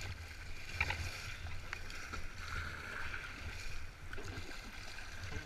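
Alpacka packraft being paddled on a river: steady water noise with a low rumble, and a few short knocks about a second in.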